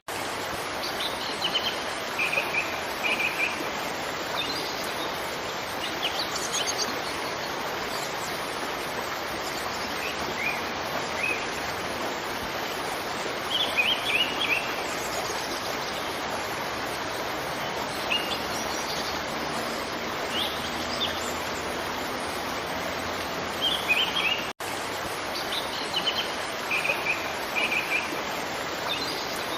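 Steady rush of a waterfall, with small birds chirping in short bursts every few seconds. The sound cuts out for an instant about five seconds before the end.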